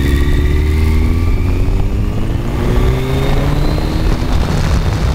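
Kawasaki ZX-10R inline-four engine heard from the rider's seat, pulling with a slowly rising pitch for about three seconds, after which the rising tone breaks off and the engine runs on at a lower, steadier note.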